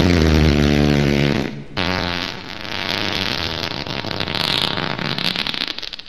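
Wet fart sound effects, two in a row. The first is a low, pitched fart that stops about a second and a half in. It is followed at once by a longer, crackling, spluttery wet fart.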